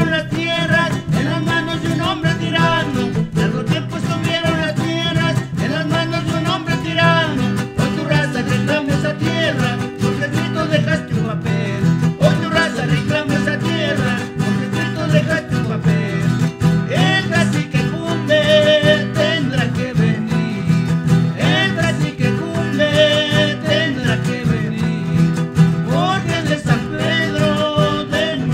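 Traditional Andean folk music played by a small band on guitars and other plucked strings, with a quick wavering melody over steady low chords.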